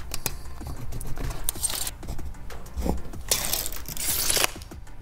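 Steel tape measure retracting: a metallic rattle lasting about a second near the end that stops abruptly. Before it come scattered clicks and scuffs of work boots on the roof underlayment.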